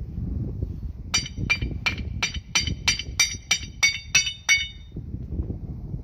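A hammer striking steel about eleven times, roughly three blows a second, each with a bright ringing clang, as a gear housing with a broken ring gear is knocked apart into its two halves.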